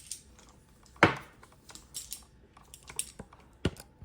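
Small plastic parts and wire connectors being handled during side-mirror reassembly: scattered light clicks and taps, the sharpest about a second in.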